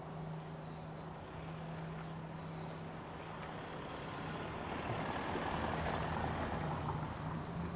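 A white van driving past close by on a cobbled street, its engine and tyre noise growing louder to a peak about five to six seconds in, then easing off.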